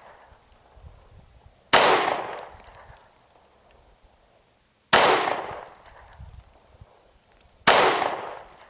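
Three single shots from a subcompact Glock pistol, about three seconds apart, each with a short fading echo.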